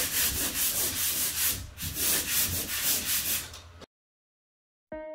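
Pole sander's sanding screen scraping back and forth over dried drywall joint compound in quick strokes, about three or four a second, with a short break partway through. It cuts off abruptly, and after a second of silence plucked-string music like a ukulele starts near the end.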